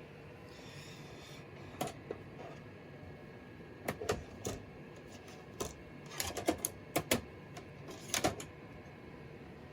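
Irregular sharp plastic clicks and clacks, about a dozen spread over several seconds, from a CD and its case being handled to load into a laptop's CD-ROM drive.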